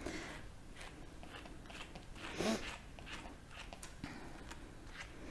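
Faint, soft scratching strokes of a slicker brush drawn through a maltipoo's fur around the ears, with one brief louder sound about halfway through.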